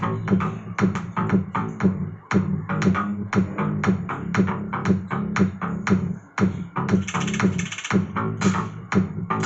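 Electronic music with a heavy bass line and a steady drum-machine beat, about three to four hits a second.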